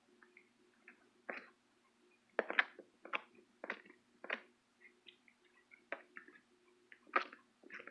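Slime being squished and worked by hand, giving several short pops and crackles at irregular intervals over a faint steady hum.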